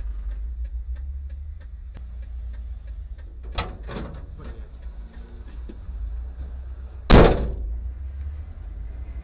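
Low steady rumble of a stopped car in traffic with a fast light ticking, about four a second, that fades out after a few seconds; two knocks about three and a half seconds in, then a loud slam about seven seconds in, the loudest sound.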